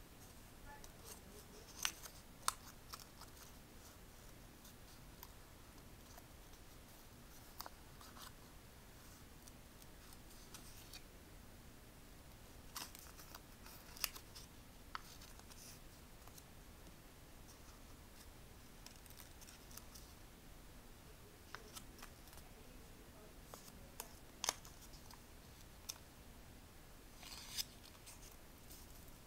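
Faint, scattered crinkles and clicks of a small sheet of origami paper being folded and creased by hand, a single snap every few seconds, over a quiet background hiss.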